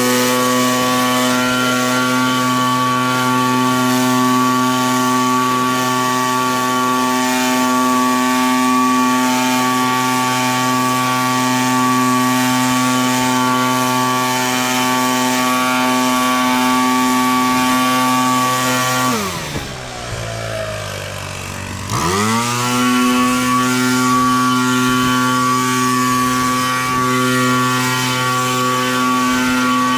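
Small petrol engine on snow-clearing equipment running steadily at full throttle. It drops to a low idle about 19 seconds in, then revs back up to full speed about three seconds later.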